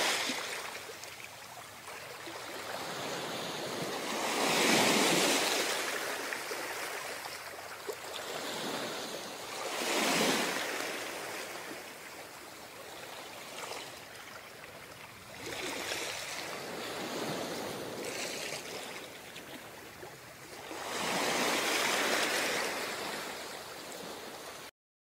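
Ocean surf: waves washing in and drawing back, the noise swelling to a peak every few seconds. It cuts off suddenly near the end.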